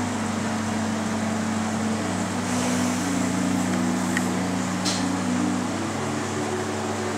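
Steady low electrical hum and hiss of running aquarium equipment. Low held tones step up and down in pitch every second or two over it.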